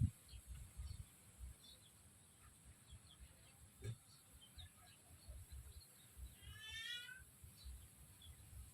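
Faint chicken calls: scattered short chirps and one longer call about seven seconds in, over faint irregular low rumbling.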